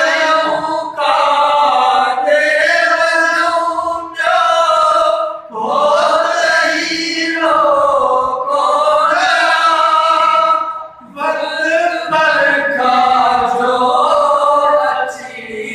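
A man singing a naat unaccompanied into a microphone, in long held, slowly wavering phrases separated by brief pauses for breath.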